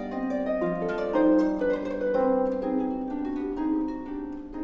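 Background instrumental music: a slow melody of plucked notes that ring on after each is struck.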